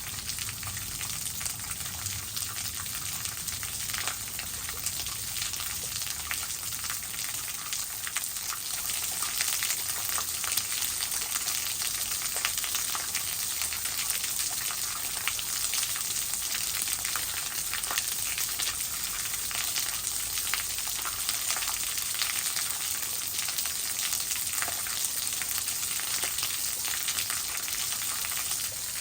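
Waterfall water splashing and spraying: a steady hiss full of fine crackles.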